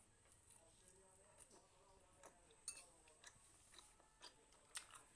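Soft chewing and mouth clicks while eating, heard faintly as scattered small clicks and crunches.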